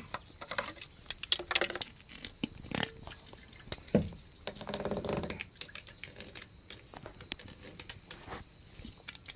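Plastic fuel cap of a Husqvarna 450 Rancher chainsaw being unscrewed and handled: scattered clicks and scrapes, with a louder knock about four seconds in and a rustling stretch just after. Insects chirp steadily in the background.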